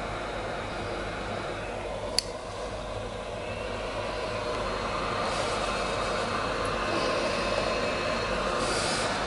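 Heat gun blowing hot air steadily at the solder joints of a circuit-board reset switch to desolder it. The noise gets a little louder about halfway, and one sharp click sounds about two seconds in.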